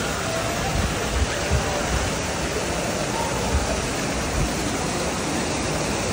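Water of the Trevi Fountain pouring over its rocks into the basin, a steady rush, with a crowd chattering faintly underneath and a few low thumps.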